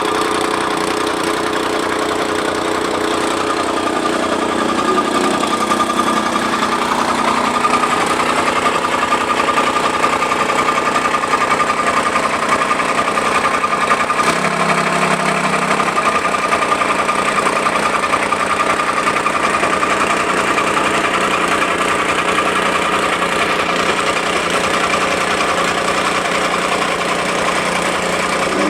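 Small engine of a jumping-jack tamping rammer running steadily under load as it compacts fill soil.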